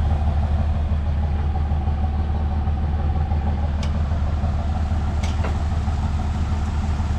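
Ford Ranger pickup's engine idling with a steady low drone, its exhaust rusted through. A couple of faint ticks come about four and five seconds in.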